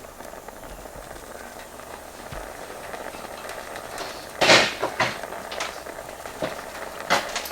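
Tools and copper being handled at the soldering bench: a loud clatter about halfway through, then a few lighter clicks and knocks, over a steady faint hiss.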